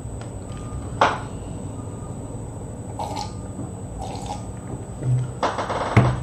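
A person sipping a drink, a few short sips and mouth noises over a steady low background hum.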